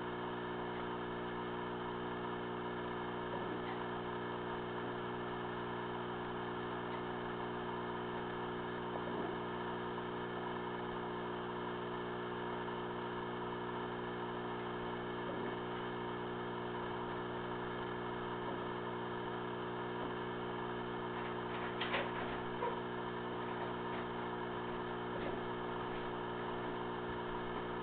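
Steady electrical hum, a stack of low even tones with a faint hiss above, broken by a few faint clicks, a pair of them about two-thirds of the way through.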